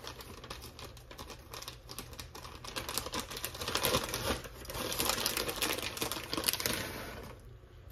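Crinkling and rustling with quick fine ticks as shredded cheese is handled and scattered over the dip, swelling and easing off twice.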